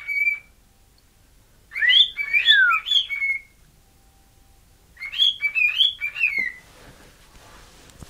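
Pet cockatiel whistling a tune it was taught: a brief note at the start, then two phrases of quick rising and falling whistled notes with a pause of about a second and a half between them.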